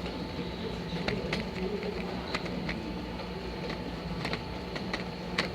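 Automatic cap press machine running with a steady hum, with irregular sharp clicks as plastic caps and containers knock along.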